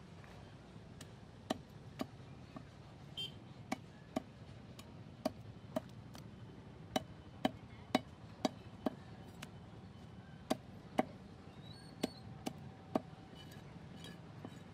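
Knife blade striking a wooden chopping block again and again while a carp is cleaned and cut, giving sharp separate knocks at an uneven pace, about two a second at the busiest.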